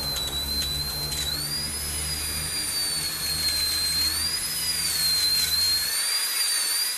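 High-pitched tone that slowly wavers up and down over a bed of hiss, a sound-design effect like ringing in the ears, with a low rumble under it that stops about six seconds in.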